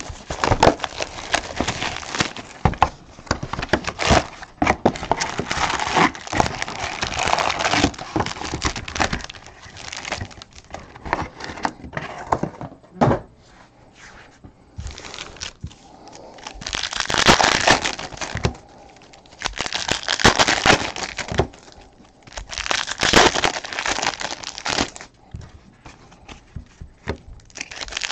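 Foil trading-card packs from a Topps Platinum football hobby box crinkling and crackling as they are handled, torn open and stacked, in irregular bursts with a few louder stretches in the second half.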